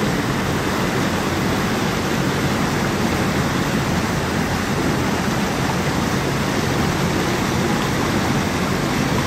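A waterfall cascading into a rocky pool, a steady, unbroken rush of falling water.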